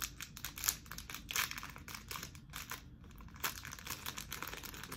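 Small clear plastic packaging bag crinkling in the hands as it is picked open, in quick irregular crackles.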